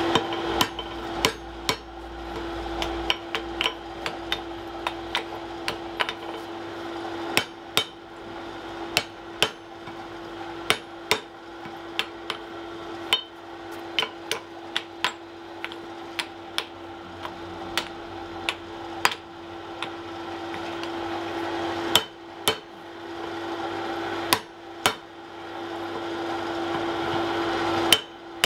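Hand hammer striking a red-hot wrought-iron bar on the anvil, bending it around a square bar to form a collar. Sharp, irregular blows come about one or two a second, with short pauses, over a steady hum.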